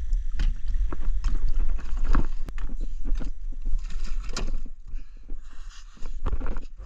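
Water sloshing and gurgling against a small boat, with a low wind rumble and irregular knocks and splashes.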